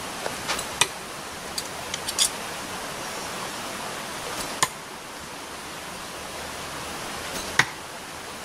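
Small steel throwing knives striking a target of wooden log rounds: three sharp knocks a few seconds apart, about a second in, halfway through and near the end, with a few fainter clicks between the first two, over a steady rushing hiss.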